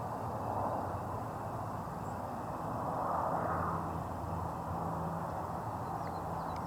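Steady outdoor background rushing that swells about halfway through and then eases, over a low steady hum, with a few faint bird chirps near the end.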